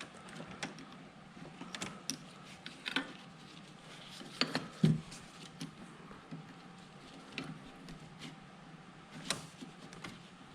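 Scattered clicks and knocks of hand tools and metal parts being handled while fitting heater hoses and hose clamps, the loudest a couple of knocks about four and a half to five seconds in.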